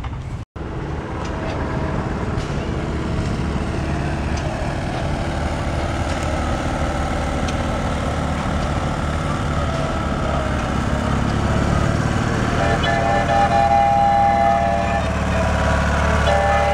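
Small gasoline engines running with a steady low rumble that grows louder over the last few seconds. A held horn-like tone sounds twice near the end. The sound cuts out for a moment about half a second in.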